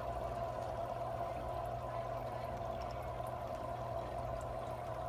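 Aquarium filter circulating water: a steady trickling, pouring sound with a low, steady hum underneath.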